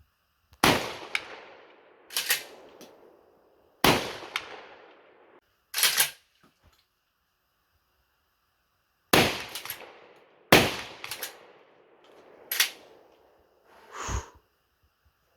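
A 12-gauge pump shotgun firing a string of shots a few seconds apart, each blast trailing off in an echo, with shorter sharp clacks between the shots.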